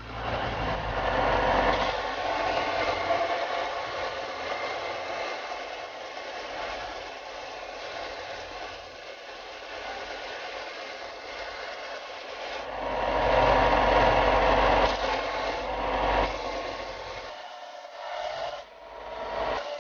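Belt grinder running with a wooden axe handle pressed against its abrasive belt: a steady sanding rasp over the machine's hum as the handle is shaped. It is louder for a few seconds past the middle, then breaks into shorter, lighter passes near the end.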